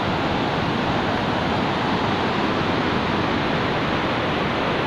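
Swollen, muddy mountain river in monsoon flood rushing over boulders: a steady, unbroken rush of white water.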